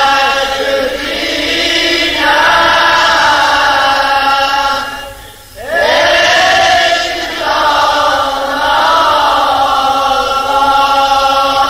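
A man chanting a Shia mourning lament (noha) in long, slowly wavering held notes. The voice breaks off briefly about five and a half seconds in, then a new phrase begins.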